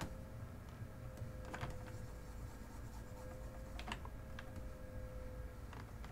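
A handful of scattered computer keyboard and mouse clicks, a second or two apart, over a faint steady hum.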